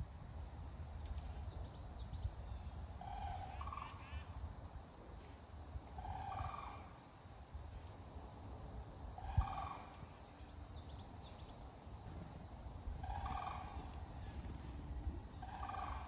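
Sandhill cranes calling, five similar rolling calls about three seconds apart, each stepping up in pitch partway through. Faint small-bird chirps come between the calls, and there is a single thump about halfway through.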